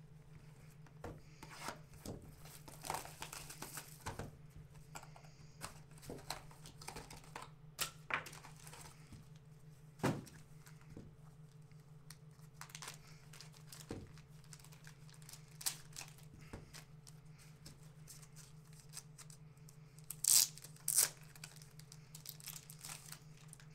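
Hands handling trading cards and hard clear plastic card holders: soft rustling and crinkling with scattered light clicks, and two sharper plastic clacks near the end.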